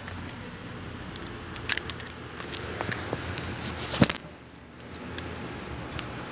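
Small metallic clicks and clinks of tools and parts being handled at the fuel pump access hole, with a sharp knock about four seconds in.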